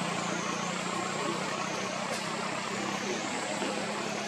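Steady background hum of motor-vehicle engines and traffic, with a thin high whine above it that dips in pitch every couple of seconds.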